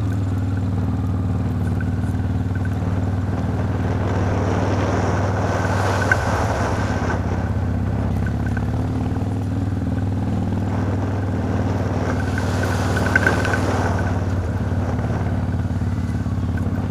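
Honda Transalp 650's V-twin engine running at a steady pitch while the motorcycle rides along dirt tracks, under a steady rushing haze of noise, with two brief clicks.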